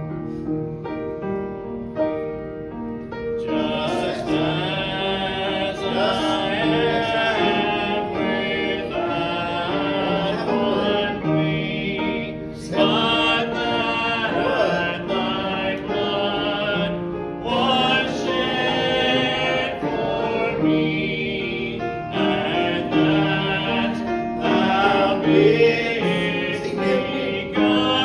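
A man singing a slow gospel hymn over piano accompaniment. The piano plays alone for the first few seconds before the voice comes in.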